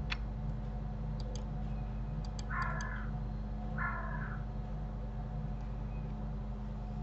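Computer mouse and keyboard clicks over a steady low hum, with a few clicks near the start and a small cluster about a second and two seconds in. Two short harsh calls, about a second apart, near the middle are the loudest sounds.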